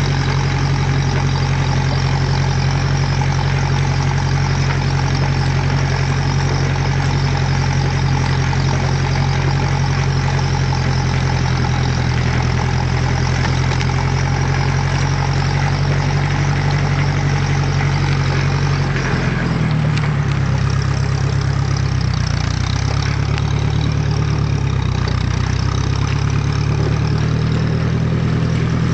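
Ferguson FE35 tractor's four-cylinder engine running steadily, its speed beginning to rise and fall about twenty seconds in.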